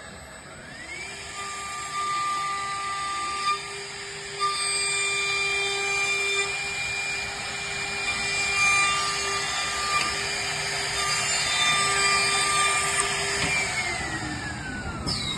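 CNC wood lathe and milling machine running. A motor whine rises in pitch about a second in as it speeds up, holds a steady pitch with a second, higher tone switching on and off several times, and falls in pitch near the end as it winds down.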